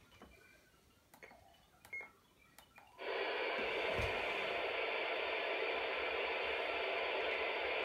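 A few button clicks and a short key beep on a Yaesu FT-817ND transceiver. About three seconds in, the receiver's speaker cuts in with loud, steady static hiss and no station coming through; the antenna is not tuned in.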